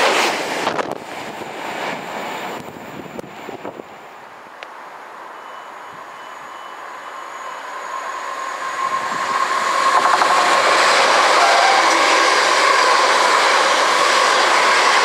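The tail of a Virgin Trains express passing at speed, its noise dropping away within the first second. A London Midland electric multiple unit then approaches, growing louder, and runs past from about ten seconds in with a steady rush of wheels on rail.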